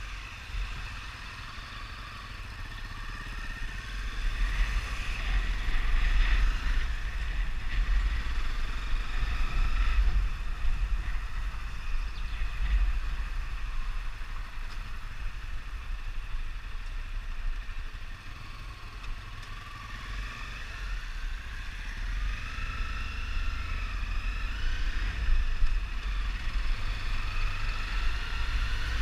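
Honda 250 single-cylinder motorcycle on the move, its engine pitch rising and falling with throttle and gear changes over a steady low rumble.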